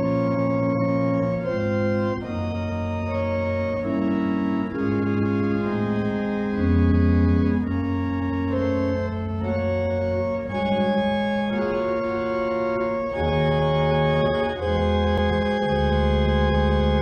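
Organ music: slow, sustained chords over deep bass notes, the harmony changing about every second.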